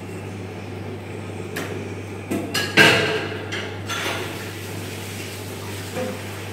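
Kitchen clatter: a handful of sharp knocks of utensils and dishes, the loudest about three seconds in, over a steady low hum.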